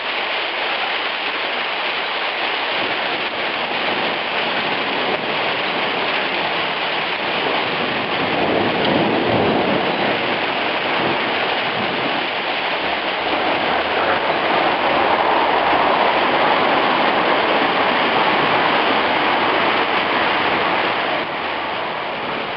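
Heavy hail falling steadily onto a stone-paved street, walls and a parked car, a dense, even patter. It grows louder about eight seconds in, with a brief low rumble from a car in the lane.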